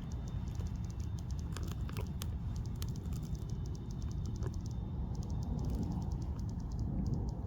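Irregular, rapid clicks and ticks over a steady low rumble, with a faint thin high whine during roughly the first half.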